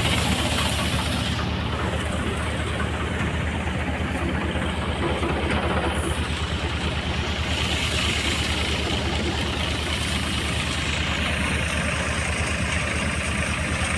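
Massey Ferguson 245 tractor's three-cylinder diesel engine running steadily, driving a multicrop threshing machine, with an even pulsing beat to the engine.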